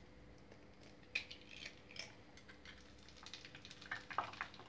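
An egg cracked with one sharp tap about a second in, then dropped into hot olive oil in a frying pan, which crackles and spits with scattered faint pops that grow busier near the end.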